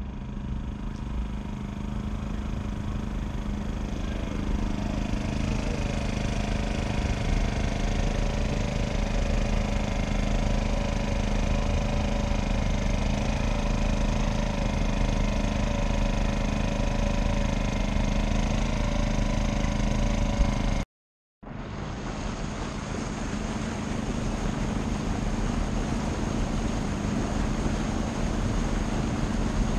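A boat's engine running steadily at an even speed, with a brief dropout about two-thirds of the way through.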